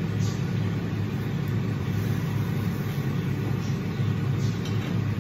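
Steady low hum and rush of a kitchen range hood fan running over the stove, with a few faint light clicks.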